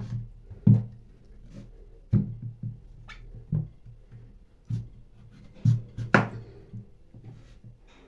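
Kitchen knife cutting through raw butternut squash and knocking down onto a plastic cutting board: about six sharp knocks, roughly a second apart, the loudest about six seconds in.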